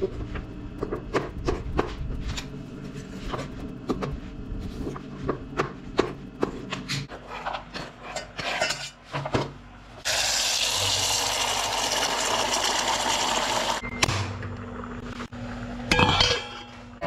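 Kitchen knife chopping fiddlehead fern stems on a wooden cutting board: a quick, irregular run of sharp chops. About eight seconds in, the chopped greens are scraped off the board into a steel pot, then water runs steadily into the pot for about four seconds and stops, followed by a few clanks near the end.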